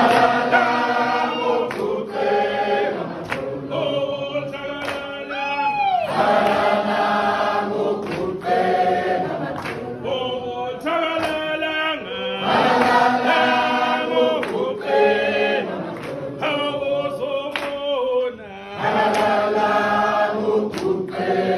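A group of people singing together in harmony, in long phrases with short breaks between them.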